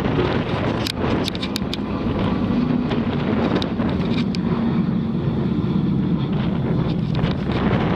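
Strong wind buffeting the microphone over the low, steady noise of a jet airliner's engines, with scattered ticks of rain striking the camera.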